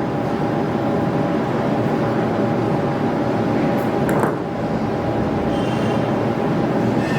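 Steady machine drone with a faint steady hum, with one brief swell of noise about four seconds in.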